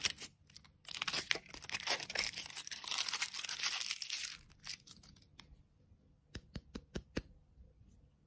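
Plastic candy wrapper crinkling and tearing open for the first few seconds, then about five sharp clicks in quick succession near the end.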